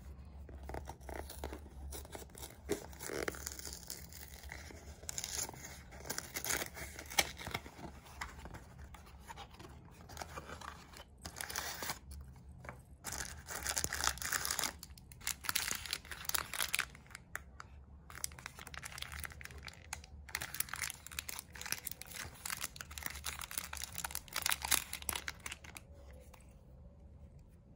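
Cardboard tampon box being torn open by hand, then irregular crinkling and rustling of the plastic-wrapped tampons inside as one is picked out and unwrapped. The rustling eases off shortly before the end.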